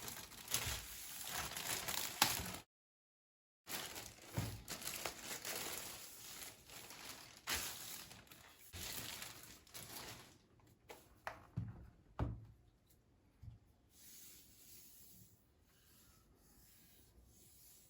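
Crinkling and rustling of laptop packaging being handled, with a few sharp clicks and knocks. The sound cuts out for about a second early on, then thins out to faint rustles in the second half.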